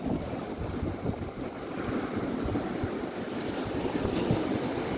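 Sea surf breaking and washing up the beach, with gusty wind buffeting the microphone; the wash swells about two seconds in.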